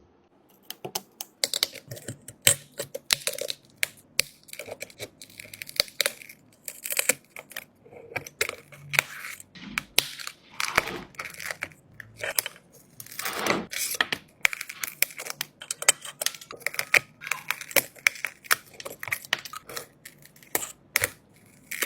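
Small hand-held objects being handled: irregular clicks and taps throughout, with a couple of longer scraping or tearing sounds about halfway through.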